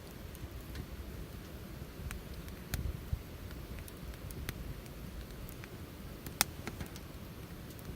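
Wood fire crackling, with scattered sharp pops, the loudest about six and a half seconds in, over a steady low rumble.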